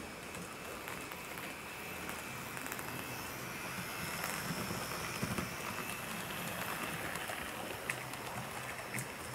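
HO scale model steam locomotive and coaches running on the track: a steady rattling, hissing rolling noise of wheels and motor that grows a little louder in the middle as the train passes close. A couple of sharp clicks come near the end.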